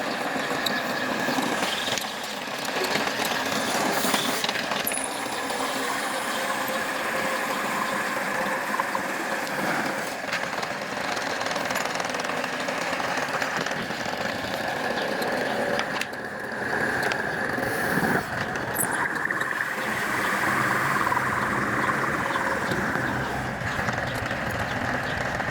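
A machine running steadily with a constant high whine, with a few knocks.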